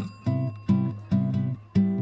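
Background music: acoustic guitar strumming chords in a steady rhythm, about two strokes a second.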